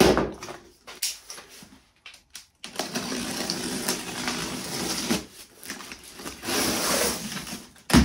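Packing tape being pulled and peeled off a cardboard box: a drawn-out scratchy ripping that starts a few seconds in, with a shorter second pull near the end. A knock from handling the box comes at the very start.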